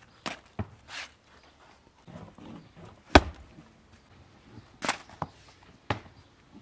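A scattered series of short, sharp knocks and taps, about seven in all, the loudest a little past the middle.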